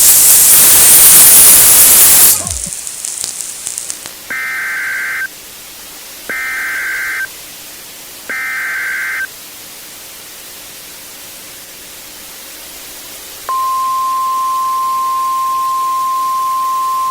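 Emergency Alert System interruption: loud TV static for about two seconds, then three short bursts of screeching data tones (the EAS header) about two seconds apart. Near the end a steady, single-pitched alert attention tone begins.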